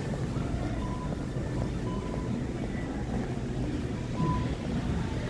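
Steady low rumble of shop background noise, with a few short beeps about a second apart early on and again near the end.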